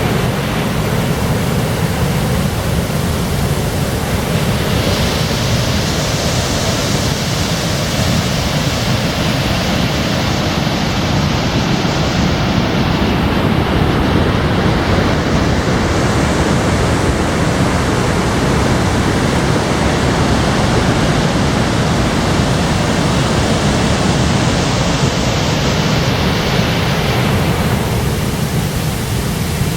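Steady loud rush of falling water, a waterfall or fast river.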